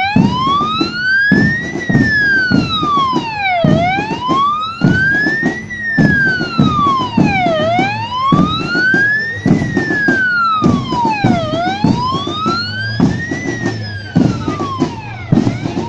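Police pickup's electronic wail siren sweeping slowly up and down, about four seconds to each rise and fall, with low drumbeats underneath.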